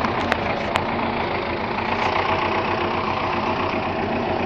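An engine idling steadily, with a fine even pulsing; two sharp clicks stand out in the first second.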